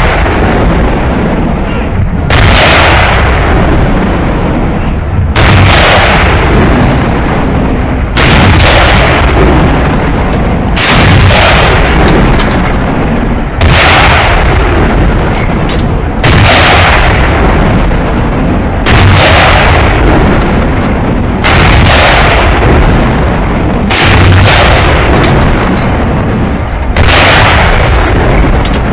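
Heavy artillery firing: about ten big gun blasts, one roughly every two and a half to three seconds, each with a long rumbling fade, over a constant deep rumble.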